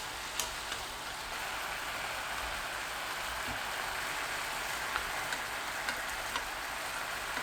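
Sauce-coated enoki mushrooms sizzling steadily in a frying pan over medium heat, with a few faint pops and clicks.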